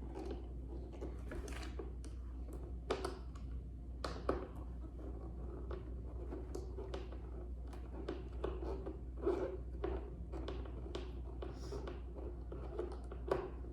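Hand work on a heater core box: irregular clicks, taps and light knocks as parts are handled and worked loose, over a steady low hum.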